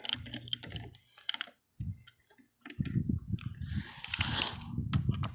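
Hand ratchet wrench clicking in short runs as the center-rail bolts are backed out, with a pause of about a second near the middle.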